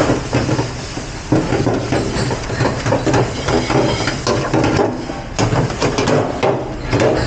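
Dishes and utensils clattering in a commercial dish room, with many irregular knocks over a steady machine hum.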